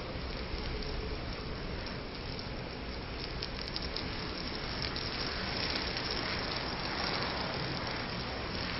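A mass of matchsticks on a chicken burning in a large open flame: a steady hiss of fire with many small crackles and pops, busiest from about three and a half seconds in.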